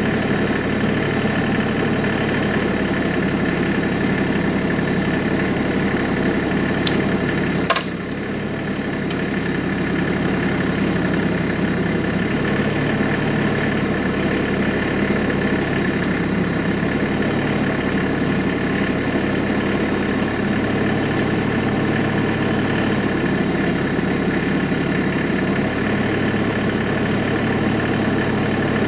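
Tractor engine running steadily at idle. About eight seconds in there is a sharp click, and the engine sound drops for a moment before building back up.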